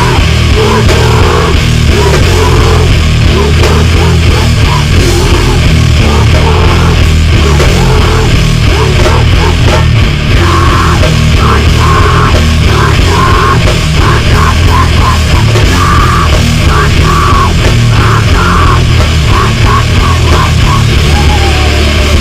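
Metalcore band demo playing at full band: heavily distorted guitars, bass, keyboards and drums, mastered very loud and dense.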